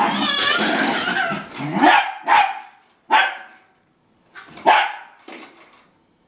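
Welsh terrier barking: about five short, sharp barks, spaced unevenly, after a toddler's continuous excited squealing in the first two seconds.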